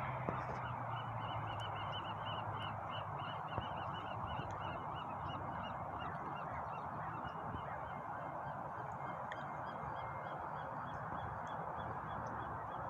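Birds calling in fast runs of short repeated calls, about four or five a second, that pause briefly near the middle, over a steady background hiss.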